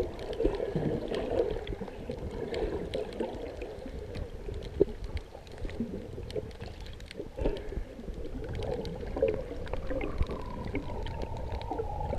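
Muffled underwater sound picked up by a submerged camera: water sloshing and bubbling as a snorkeler swims with fins, with many small scattered clicks.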